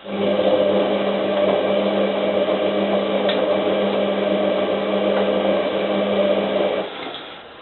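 Hotpoint 9534A washing machine's motor turning the drum in one wash tumble during the main wash: a steady motor hum that starts suddenly and cuts out about seven seconds in.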